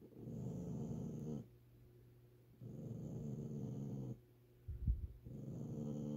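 Small Chinese Crested dog growling low, three long growls spaced a couple of seconds apart. It is a grumpy warning at being disturbed from its nap. A short thump comes just before the third growl.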